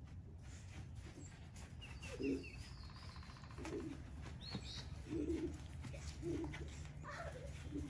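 Birds calling: a short low call repeated about five times, roughly every second and a half, with a quick run of high chirps and a rising high call between them.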